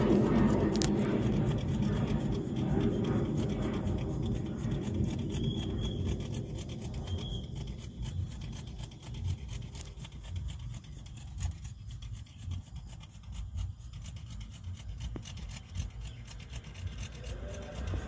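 A bang fai, a Thai homemade black-powder rocket, its motor rushing and fading steadily as it climbs away over the first several seconds. After that only a low, uneven rumble remains.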